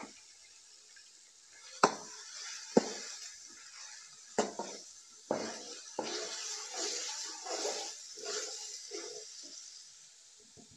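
Perforated steel skimmer knocking sharply against an aluminium cooking pot three times, then stirring raw mutton pieces through hot oil with onions and tomatoes, a continuous wet scraping that stops shortly before the end.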